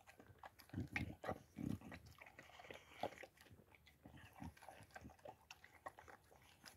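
Boxer dog eating from a steel bowl: irregular wet chewing and crunching bites, stronger in the first three seconds and fainter after.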